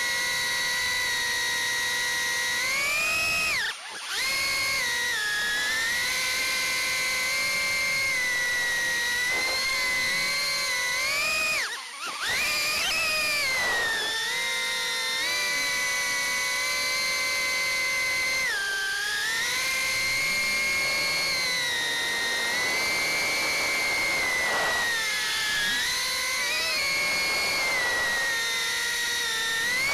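Beta75X 2S whoop drone's four 11,000 KV brushless motors and 40 mm four-blade props whining in flight, heard through the onboard HD camera's microphone. The pitch rises and falls with throttle. The sound cuts out briefly twice, about four seconds in and again about twelve seconds in.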